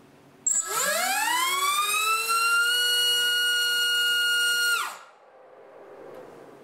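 HypeTrain Grinder 2306 2450KV brushless motor spinning a GemFan Flash 5149 three-blade propeller on a thrust stand. It makes a loud whine that rises in pitch over about two seconds as it spools up to full throttle on 4S, holds steady, then falls away and stops about five seconds in.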